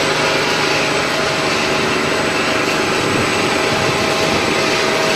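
Snack-making production machinery running steadily, a loud, even mechanical whir.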